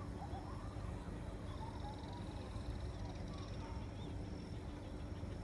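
Faint, scattered bird chirps over a steady low rumble, with a brief buzzy trill near the middle.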